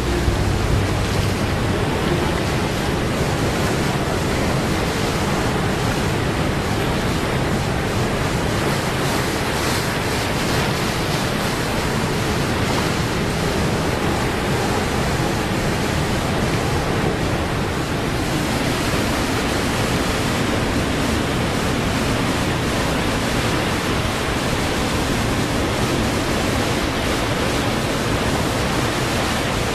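Steady rushing of water in large river rapids and a waterfall, an even noise without pauses or changes.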